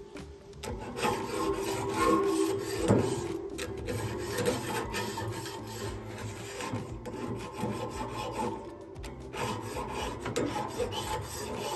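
Grill Floss, a metal grill-cleaning tool, is rasped back and forth along a single steel rod of a dirty grill grate in repeated scraping strokes. The tool cleans one rail at a time.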